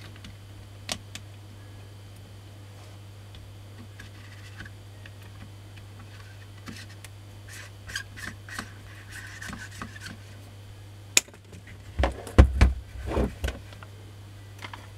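Small clicks and scrapes of a screwdriver and plastic parts as the switch end of a Makita 9237 CB polisher is reassembled. About eleven seconds in there is a sharp click, then several heavy thumps as the tool body is shifted on the workbench.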